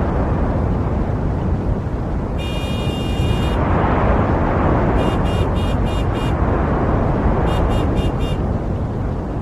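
City street traffic with a steady rumble of passing vehicles. A car horn is held for about a second, then sounds two quick runs of short honks.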